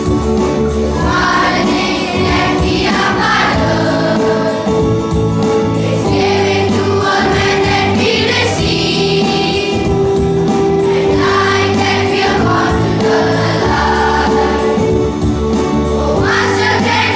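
A choir of children singing a hymn, with instrumental accompaniment and long held notes.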